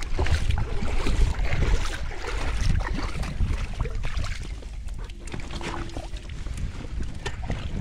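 Wind rumbling on the microphone, with irregular splashing and sloshing of shallow water around an inflatable dinghy as it is waded and pushed off from shore.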